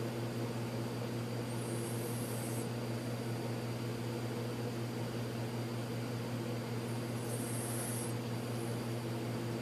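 Steady low mechanical hum with a few fixed tones, with two short soft high-pitched hisses, one about two seconds in and one about seven seconds in.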